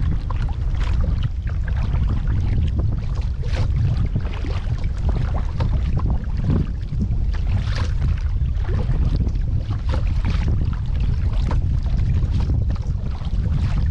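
Kayak paddle strokes: irregular water splashes and drips from the blades, over a heavy, steady rumble of wind on the microphone.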